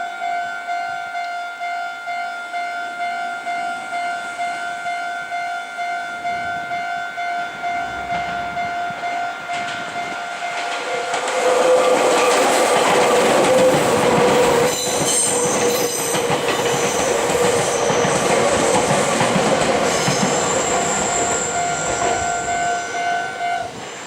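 Japanese level-crossing warning bell ringing in a steady, evenly pulsing electronic tone. From about halfway a Meitetsu Nagoya Main Line train runs through the crossing, loudly, with wheel clatter over the rails. The bell stops just before the end.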